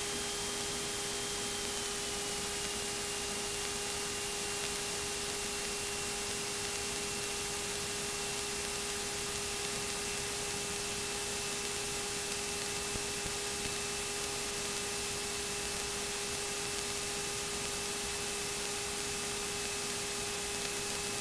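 Steady hiss of a light aircraft's intercom and radio audio feed, with a steady whine and a fainter high tone that dips slightly in pitch about two seconds in.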